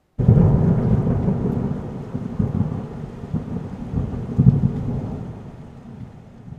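Thunder sound effect: a deep rumble that starts suddenly, swells again about four and a half seconds in, then fades away.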